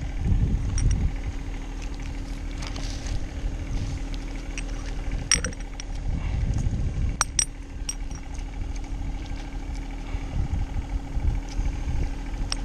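A steady engine hum, like a motor idling, under rumbling wind on the microphone, with a few sharp metallic clinks of rigging hardware about five and seven seconds in.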